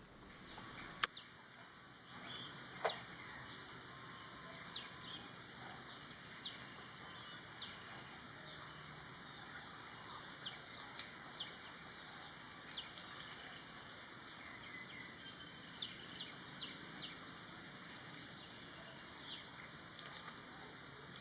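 Many short, high bird chirps, scattered irregularly over a faint steady background hiss.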